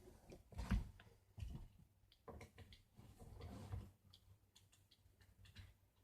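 Fidget cube buttons and switch being clicked, a quick uneven series of faint plastic clicks.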